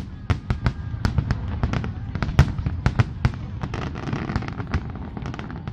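Fireworks display: a rapid barrage of sharp bangs, several a second, with a burst of crackling about four seconds in.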